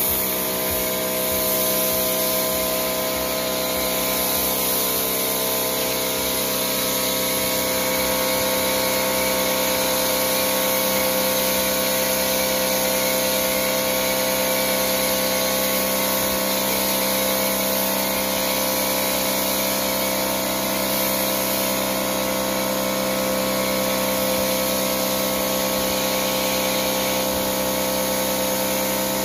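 Sun Joe pressure washer running steadily, its motor and pump giving a constant hum under the hiss of a foam cannon spraying soapy foam.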